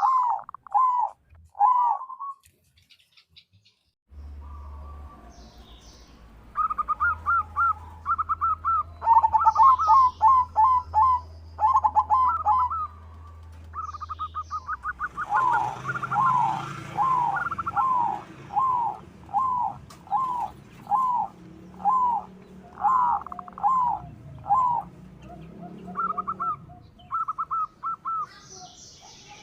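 Zebra dove (perkutut) cooing in phrases of short repeated notes, with a brief pause a couple of seconds in. A faint low hum runs under the first half.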